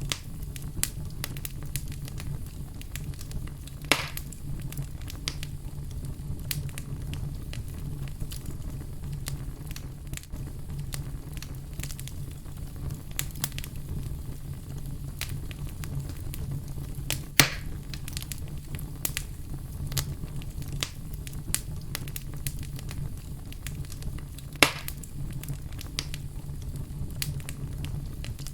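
Fire crackling in a fireplace: a steady low rumble with many small snaps, and three louder pops, about four seconds in, past the middle, and near the end.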